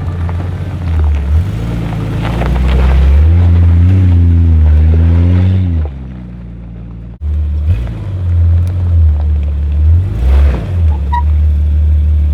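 A vehicle's inline-six engine running under way, its pitch rising and falling as revs change about four to six seconds in. The sound drops off abruptly, then comes back with a click about seven seconds in.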